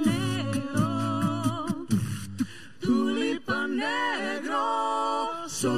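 A mixed four-voice a cappella quartet singing with no instruments. For about two seconds a sung bass line and sharp clicks of vocal percussion run under held harmonies. Then the bass drops out, and the upper voices swell up and down before holding a chord.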